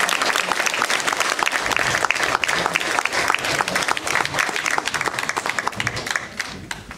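Audience applauding, dense clapping from many hands that thins out near the end.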